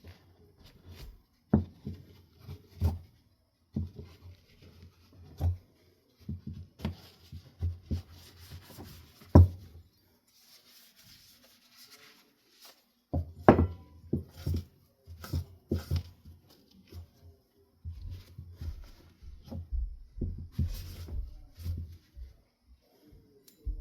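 Irregular knocks, thumps and rubbing from ceiling fan parts being handled and wiped clean on a desk, with a few louder knocks and stretches of soft scrubbing hiss.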